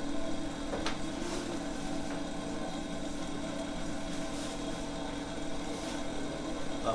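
A steady, low mechanical hum, like a motor running, with a faint click about a second in.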